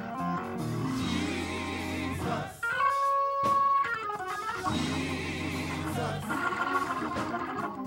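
Gospel praise team singing together over band accompaniment. About three seconds in, one high note is held for about a second.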